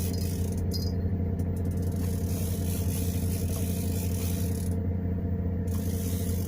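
A boat's engine running steadily: a constant low hum with a rattle over it.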